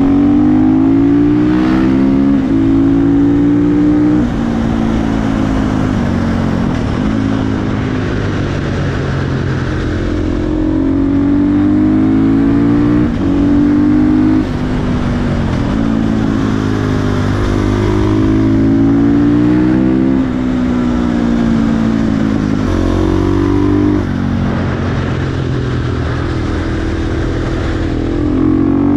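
KTM 450 single-cylinder supermoto engine breathing through a full HGS aftermarket exhaust, pulling hard through the gears. The pitch rises and then drops sharply at each upshift, about ten times.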